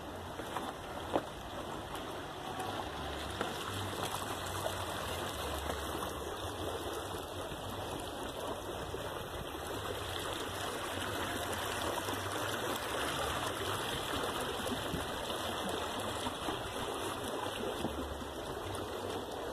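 Water of a stream flowing and trickling steadily, with a single sharp knock about a second in.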